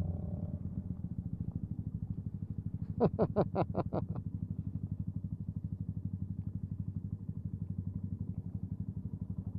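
Yamaha MT-125's single-cylinder engine running at a low, steady putter. About three seconds in, a quick run of about seven short sharp sounds cuts over it.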